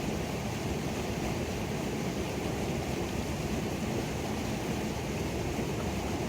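Waterfall on a creek: a steady rush of falling water, heaviest in the low range.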